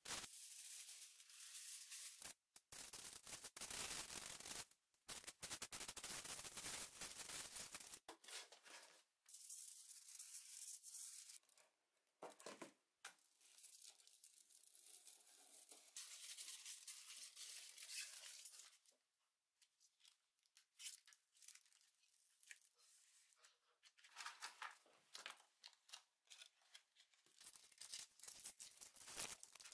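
An aerosol can hissing in short bursts for the first several seconds, then aluminium foil crinkling, scraping and tearing as it is pressed into a plastic box and cut with a utility knife, with sparser rustling near the end.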